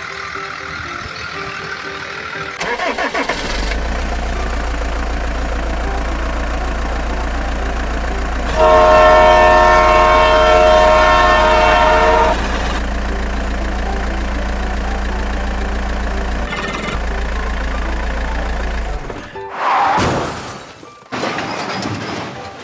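Dubbed-in truck sound effects: a steady low engine rumble, with a loud horn blast of about four seconds in the middle, and a brief sweeping whoosh near the end.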